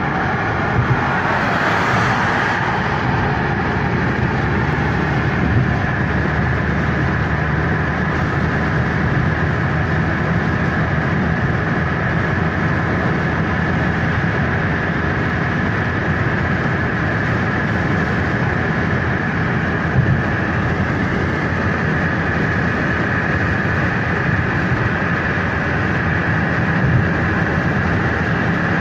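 Steady road noise heard inside a car's cabin at highway speed: tyre and engine noise, with a brief rise in hiss about two seconds in.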